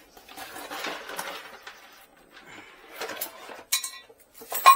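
Handling a new plastic toilet flush valve: a stretch of rustling, then a few light knocks and two sharp clinks that ring briefly, the loudest near the end.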